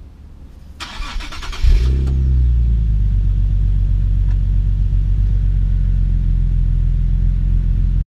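Nissan 370Z NISMO's 3.7-litre V6 starting. The starter cranks for about a second, the engine catches with a loud rev flare, and it settles into a steady idle.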